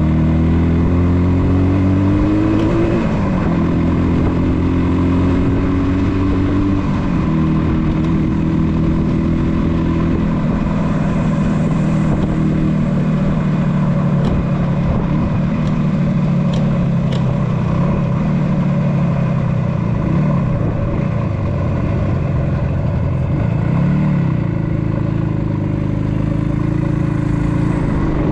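A 1976 Yamaha RD400's two-stroke twin engine running under way: its pitch climbs through the gears, dropping back at shifts about three seconds in and again near seven, then runs fairly steady, with a brief dip and pick-up near the end.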